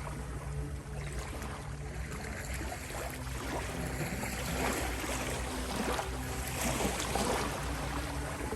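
Gentle ocean waves washing in, a steady wash of surf that swells a couple of times, over a soft low drone of held synth notes.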